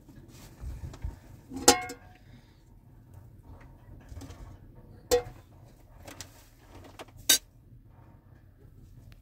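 Three sharp knocks of hard objects a few seconds apart, the first the loudest; the first two ring briefly, with a low, steady rumble underneath.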